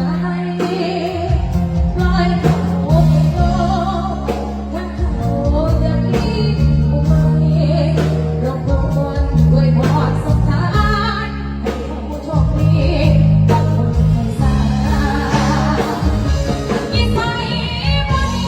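A woman singing a Thai Isan luk thung song with a live band over a heavy, steady bass line, played through a large outdoor sound-truck PA during a sound check.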